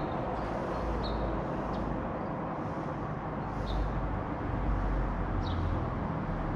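Outdoor neighbourhood ambience: a steady wash of distant traffic with a low rumble that swells a little in the middle, and a few short, high bird chirps.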